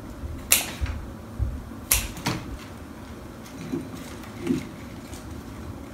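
Two sharp snips of scissors cutting through lily stems, about a second and a half apart, followed by a couple of faint light knocks.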